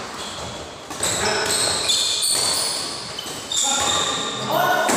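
Badminton doubles rally: a few sharp racket hits on the shuttlecock, and court shoes squeaking on the hall floor as players shift and lunge.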